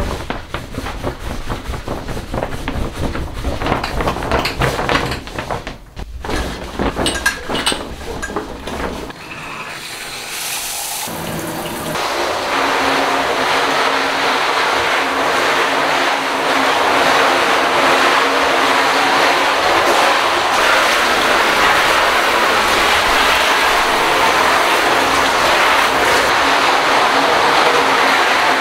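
Rapid irregular scrubbing strokes on wet shower surfaces, then, about twelve seconds in, a handheld shower head starts spraying water in a steady rush against the shower curtain and tub.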